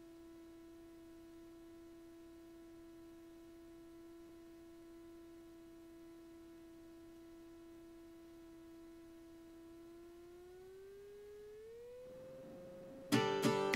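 A faint steady humming tone with overtones that glides up in pitch about ten seconds in and then holds. Strummed acoustic guitar music starts loudly near the end.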